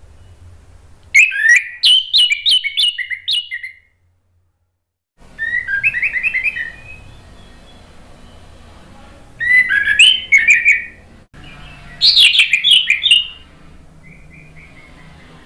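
Orange-headed thrush singing: about five short phrases of quick, varied whistled notes, each lasting a second or so, separated by pauses.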